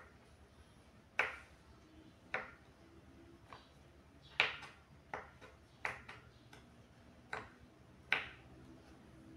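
A knife slicing tempeh into thin pieces on a wooden cutting board: about nine sharp taps of the blade striking the board, coming irregularly about once a second.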